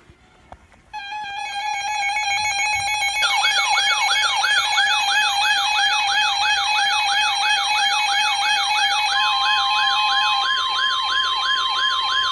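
Electronic siren-type alert tones. A steady tone starts about a second in, and a fast yelping wail of about two to three rising-and-falling sweeps a second joins it. Near the end a second steady tone takes over from the first.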